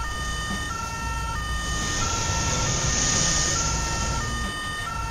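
Fire engine two-tone siren, switching back and forth between a higher and a lower pitch about every 0.7 s, over a low vehicle rumble. A hiss rises and fades around the middle.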